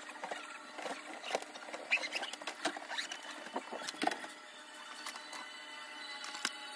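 Irregular rustling of clothes with light clicks and knocks as items are picked up and moved around while tidying a cluttered floor.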